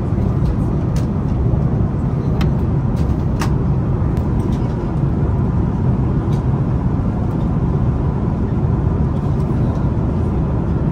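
Steady in-flight cabin roar of an Airbus A330-900neo, engine and airflow noise, with a few faint clicks in the first few seconds.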